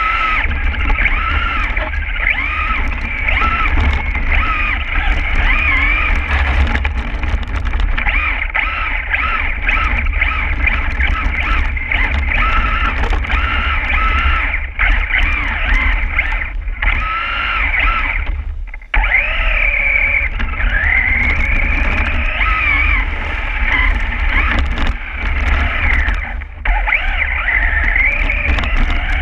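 Electric motor and gears of a Losi XXX-SCT radio-controlled short-course truck whining, the pitch rising and falling with the throttle, heard from a camera mounted on the truck over a steady low rumble. The whine drops out for a moment about 19 seconds in.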